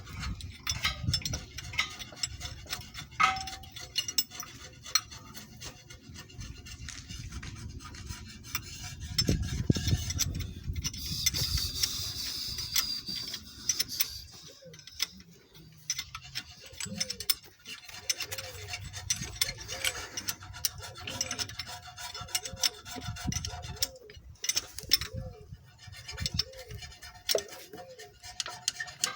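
Hand scraping and rubbing on metal with light clinks of tools. From about halfway in, a steady series of repeated strokes runs at about one every 0.7 seconds.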